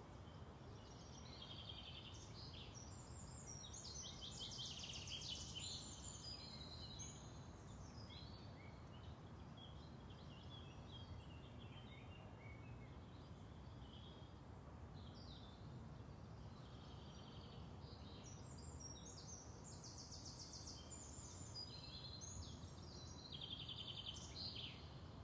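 Faint outdoor ambience with small birds singing: two spells of rapid trills and chirps, the first a few seconds in and the second near the end, over a low, steady background rumble.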